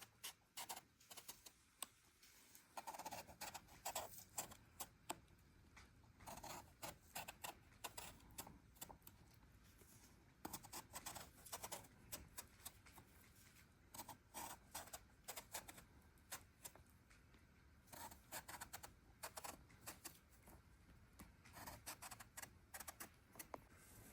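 Faint, irregular scraping and tapping in clusters of quick strokes, as of small objects being handled and rubbed.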